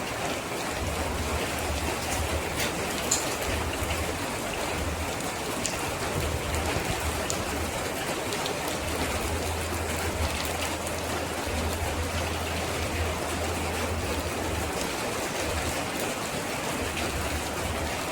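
Steady rainfall, a continuous even hiss with occasional sharper drop ticks and a low, uneven rumble underneath.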